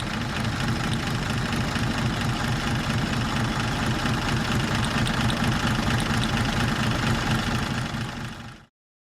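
Car engine idling steadily with an even, low running pulse; the sound cuts off abruptly near the end.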